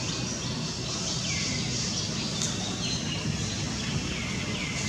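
A high call that falls in pitch and then levels off, repeated several times about every second and a half, over a steady low background rumble.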